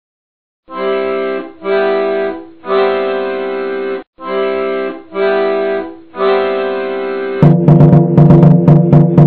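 Background music: after a brief silence, six held chords in a row, then a louder track with drum beats cuts in near the end.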